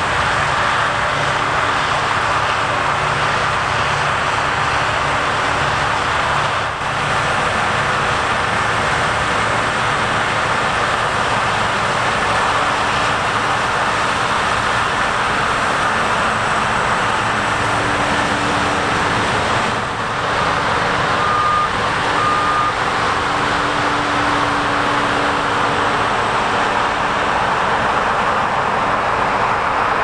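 New Holland CR10.90 combine harvester on crawler tracks running steadily while cutting and threshing grain: a dense, unbroken machine noise. Two short high beeps sound about two-thirds of the way through.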